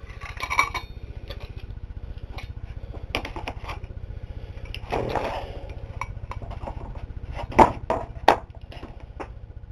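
Metal transmission parts and hand tools being handled on a wooden workbench: scattered small clicks and clinks, a short scraping rustle about five seconds in, and two sharp knocks near the end as parts are set down, over a steady low hum.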